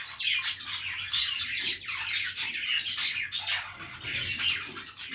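Budgerigars chirping and warbling together: a dense, unbroken chatter of quick high chirps.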